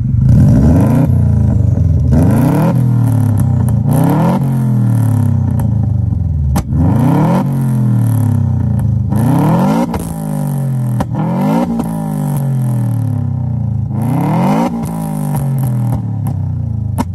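Subaru WRX's turbocharged flat-four, fitted with a new turbo, uppipe and muffler, revved from idle about seven times through the exhaust. Each rev rises quickly, then falls slowly back down over a second or two.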